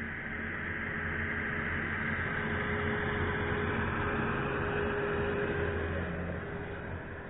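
Heavy-haul semi truck towing a multi-axle trailer load passes close by; its engine and tyres make a steady rushing hum that swells to a peak in the middle and eases off near the end.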